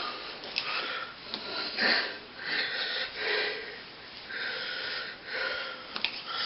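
A series of short, breathy sniffs or breaths, several close together.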